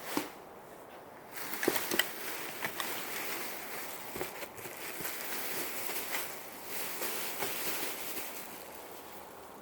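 Rustling and crinkling as dresses are handled and pulled from a box, with a few sharp clicks and snaps among the rustle, the loudest about two seconds in.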